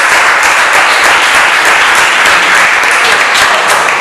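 An audience applauding: many people clapping steadily together.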